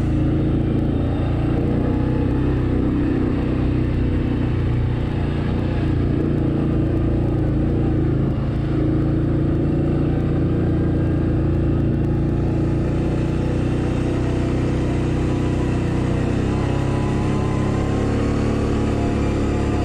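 Can-Am Outlander ATV engine running steadily under way on a gravel trail, its pitch shifting slightly near the end.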